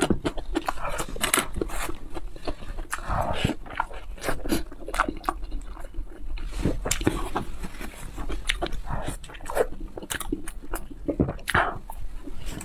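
A person biting and chewing food close to the microphone: many short wet clicks and smacks, with a few brief voice-like sounds mixed in.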